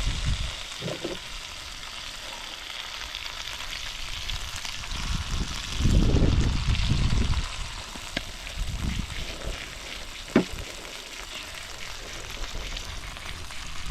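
Fish fillets with spices sizzling steadily in a frying pan on a camp cooker. A low rumble comes about six seconds in, and there is a single sharp click near the end.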